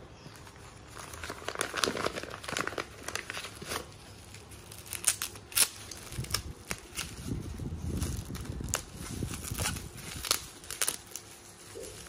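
Plastic bubble wrap crinkling and crackling irregularly as it is peeled off a lighter by hand. The loudest, sharpest crackles come about five seconds in.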